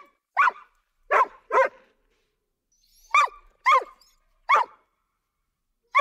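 A dog barking: about seven short barks in uneven pairs, each one rising and falling in pitch, with dead silence between them.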